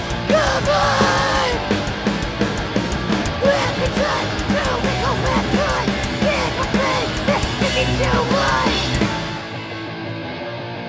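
Hardcore punk band playing live: distorted guitar, bass and pounding drums under a woman's shouted vocals. About nine seconds in the music thins out and drops in level for the last second and a half.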